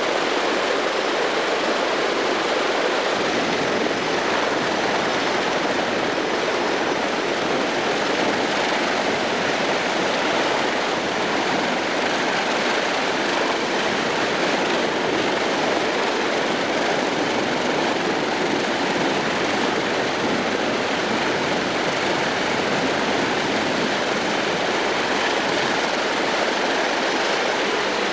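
Wright R-3350 18-cylinder radial engines of a Lockheed Super Constellation running steadily after start-up, a continuous engine and propeller roar, with the low end filling in about three seconds in.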